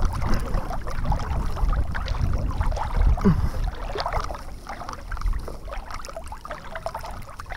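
Water splashing and sloshing close against a camera held at the surface by someone swimming, with short irregular splashes over a low rumble of water and wind on the microphone.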